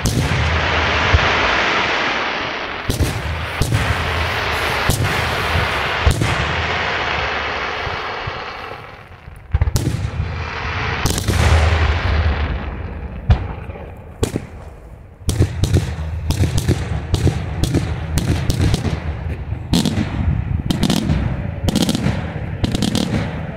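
Daytime aerial fireworks shells bursting. First a dense rolling crackle with a few loud bangs, which dies away about nine seconds in. Then come single heavy bangs, and from about two thirds of the way through a fast run of sharp bangs, several a second.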